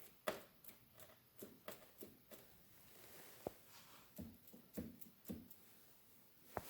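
Faint, irregular metallic clicks and clunks, about a dozen, some with a brief ring, from VW Type 1 connecting rods being rocked on the crankshaft: the rods have a massive amount of play.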